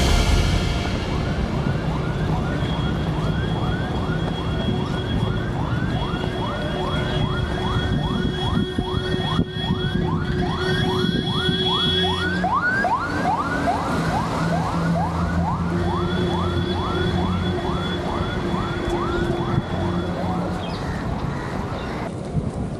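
Electronic emergency-vehicle siren in a fast yelp, rising in pitch and dropping back about twice a second, over a steady low vehicle drone.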